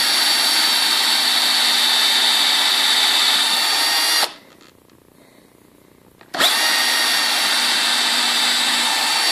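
Electric drill running steadily while boring into a wooden chair rail toward the dowel pins of a loose joint. It stops about four seconds in and starts again about two seconds later.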